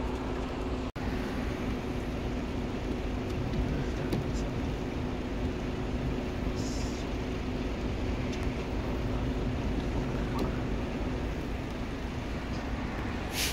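Steady vehicle and road noise with a low, even engine hum, and a car passing on the road near the start.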